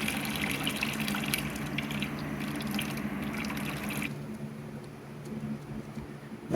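Water pouring and trickling as it drains out of the pulled V8 engine, the flow easing off about four seconds in.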